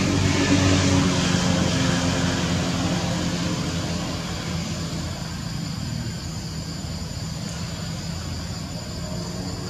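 An engine's low steady drone, loudest near the start and slowly fading away.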